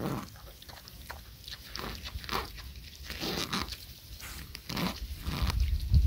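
A dog sniffing and making a series of short, low sounds, several in a row.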